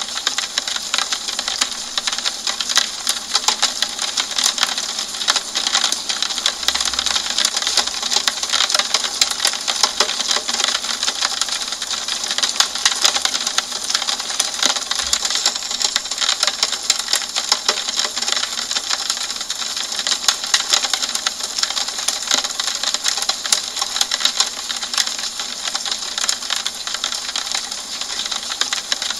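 Steady rain falling on a window pane: a dense stream of fine drop ticks over a constant hiss.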